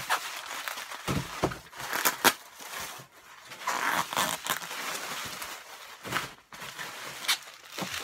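Plastic bubble wrap crinkling and rustling as it is handled and unwrapped, with a couple of sharp crackles about two seconds in.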